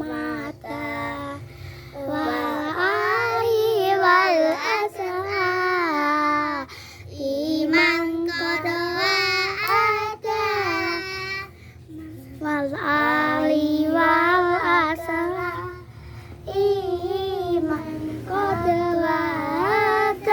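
A child singing a sholawat, an Islamic devotional song praising the Prophet, in long wavering, ornamented phrases with short breaks for breath between them.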